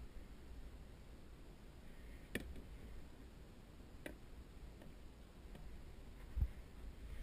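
Hands handling a catfish in a landing net aboard a kayak: two sharp clicks a couple of seconds apart, then a short dull thump near the end, over a steady low rumble.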